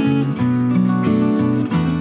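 Background music with a steady beat and chords changing every half second or so.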